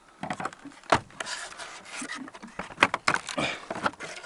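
A small weathered wooden hatch with rusty iron strap hinges being pushed shut by hand against a barn's board wall: old boards scraping and knocking, with a sharp knock about a second in and a cluster of knocks near the end.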